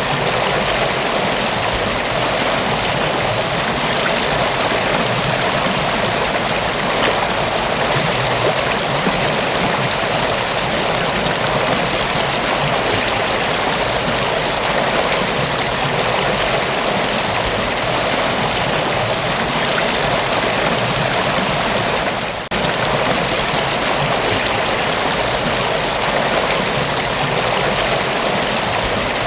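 Mountain waterfall: a steady, dense rush of falling water, with a brief dip in level about three quarters of the way through.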